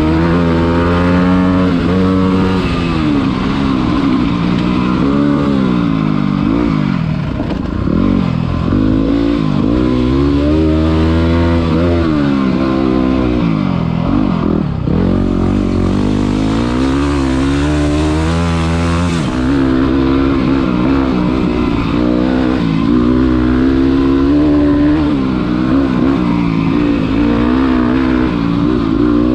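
Single-cylinder Yamaha WR dirt bike engine being ridden, its pitch climbing and dropping again and again as the throttle opens and it shifts through the gears, then holding steadier revs near the end.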